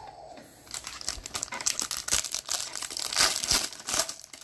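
Crinkling and tearing of a trading card pack wrapper, handled and torn open in a run of irregular crackles that starts under a second in.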